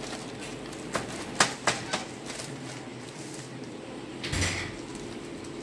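Light clicks and taps of small items being handled on a bench, four in quick succession about a second in, then a short muffled thump with a rustle about four seconds in, over a steady low room hum.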